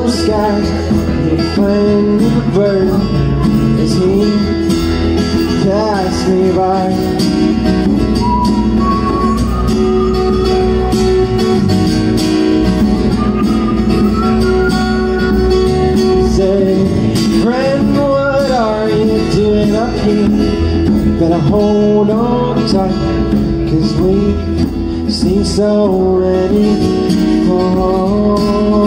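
Live acoustic band playing a country-style song: strummed acoustic guitar, a bass line, hand percussion and a sung melody.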